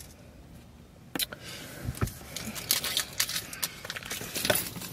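Rustling and a quickening run of clicks and taps, like objects being handled, starting about a second in after a near-quiet moment.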